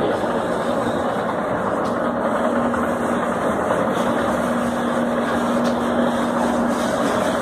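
Escalator running: a steady mechanical hum and rumble, with a low tone joining in about two seconds in and fading shortly before the end.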